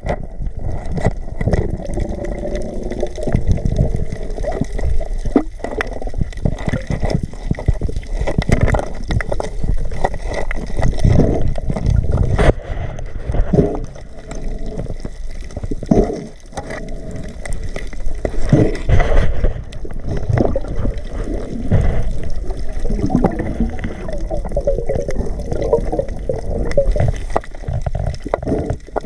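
Water sloshing and gurgling, with irregular short knocks throughout.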